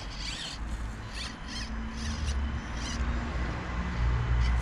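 Axial SCX24 Deadbolt micro crawler's small electric motor and gears whining in short high-pitched bursts as it is driven back and forth on rocks, over a low rumble that grows louder in the second half.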